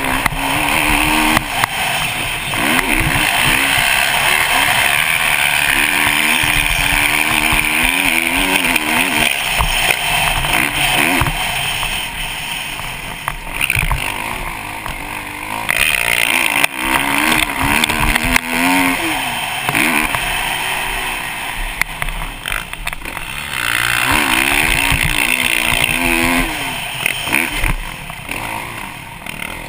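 Kawasaki KX450 four-stroke single-cylinder motocross bike engine revving hard and backing off through a lap, its pitch rising and falling with the throttle and gear changes, heard from a helmet-mounted camera with a steady rush of noise over it. The engine eases off a few times, a little before halfway, about three quarters in and near the end.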